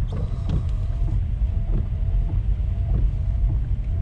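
Car driving slowly along a wet, flooded street, heard from inside the cabin: a steady low rumble of engine and tyres with a faint hiss of water under the wheels. A faint short chirp repeats slightly under twice a second.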